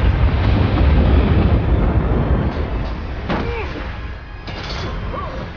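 Film sound of an avalanche: a loud, deep rumble of snow crashing in, heaviest in the first couple of seconds and then easing off, under score music. A couple of short cries break through past halfway.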